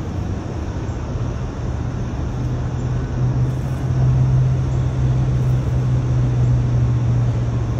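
Steady low motor hum, swelling slightly a few seconds in and easing off near the end.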